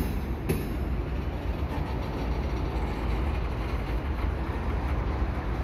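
Tank cars of a slow freight train rolling over a steel girder bridge: a steady low rumble, with one sharp wheel click about half a second in.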